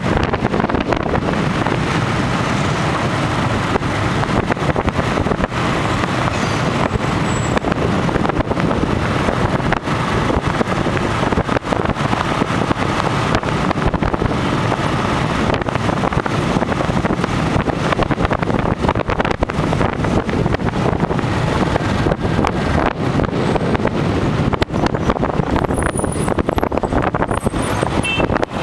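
Motorbike engine running while riding through city traffic, with wind buffeting the microphone.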